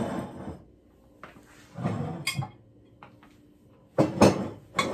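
Glass jars with glass lids being handled and set down on a wooden countertop: a few knocks and clinks with short rustling between, the loudest about four seconds in.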